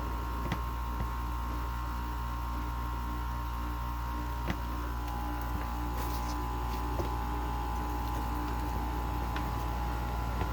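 General Electric 5,100 BTU air conditioner running, with a steady hum from its LG-made compressor and fan and a few faint clicks. The unit is just starting to blow cold as the refrigerant pressure builds.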